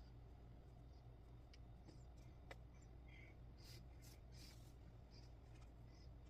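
Near silence: faint rustles and small ticks of a needle and thread being drawn through cross-stitch canvas, over a low steady hum.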